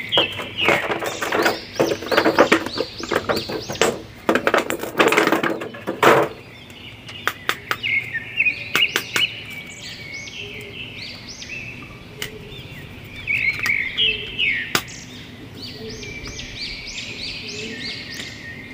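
A clear plastic blister tray crinkling and crackling as toy action figures are pulled out of it, busiest in the first six seconds. After that, a bird chirps repeatedly, in short high chirps.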